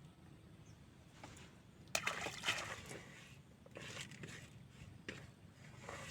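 Water sloshing and splashing in three short bursts, the first opening with a sharp knock about two seconds in.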